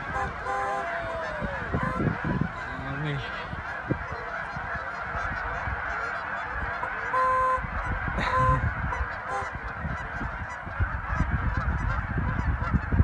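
A large flock of wild geese honking, with many calls overlapping into a continuous din as part of the flock takes flight.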